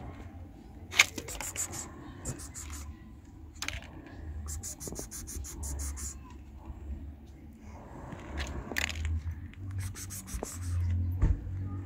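Stray cat eating from a plastic plate on gravel: short runs of quick crunching and scraping, over a low rumble.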